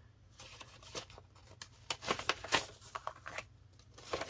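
Paper greeting card and envelope being handled: a handful of light clicks and soft paper rustles as the card is slid out of the envelope and set down.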